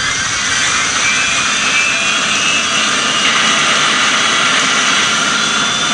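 Jet aircraft engine sound effect: a loud, steady rush of noise with a high whine slowly rising in pitch, as of a jet taking off.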